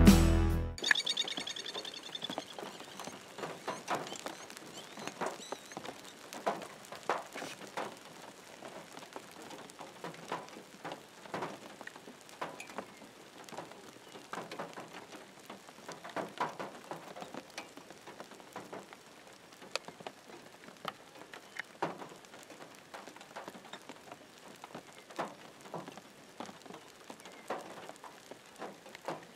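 Light rain pattering: scattered drops tick irregularly over a soft hiss.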